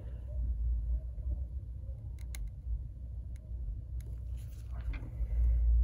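Steady low background rumble with a few faint clicks, the rumble swelling near the end.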